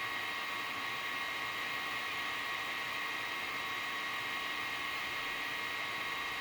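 Creality Ender-3 3D printer running a print: steady whir of its cooling fans with a constant high whine on top.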